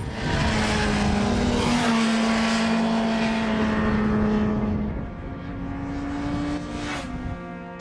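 Motorcycle engine running hard at high revs, a steady held note over a rush of noise. About five seconds in, it drops back and settles on a slightly higher note before fading out.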